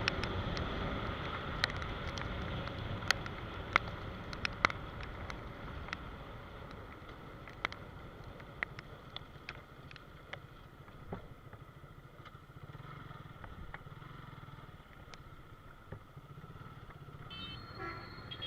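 Suzuki Gixxer motorcycle being ridden at speed, its engine and the wind rush steady and then gradually quieter, with many sharp ticks in the first half. A short horn-like tone sounds near the end.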